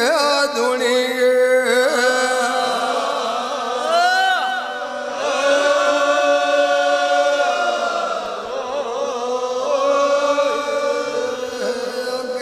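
Devotional chant of Dev Narayan's name, sung in long held notes that waver and bend in pitch.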